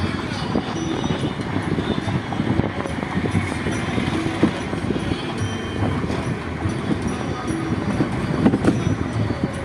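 Steady rumble and clatter of a moving train, with many small knocks throughout.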